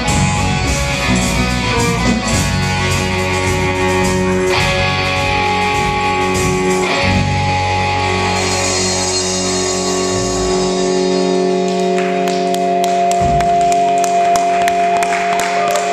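Rock band playing an instrumental passage with guitar. About ten seconds in the low bass drops out, leaving held notes over quick, regular taps.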